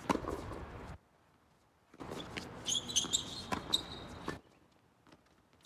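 Tennis balls struck by rackets and bouncing on a hard court, with footsteps scuffing during a doubles rally and a high squeaking tone in the middle. The sound cuts out briefly about a second in and again from about four and a half seconds.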